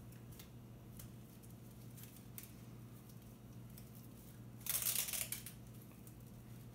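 Dog snow bootie being pulled onto a small dog's paw by hand: faint rustling and light clicks of the boot's fabric, then about five seconds in a short rasp lasting under a second, the loudest sound.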